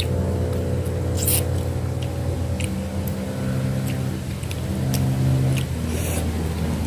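A steady low engine hum that swells and fades, with several sharp clicks and crunches of eating, the loudest about a second and a half in.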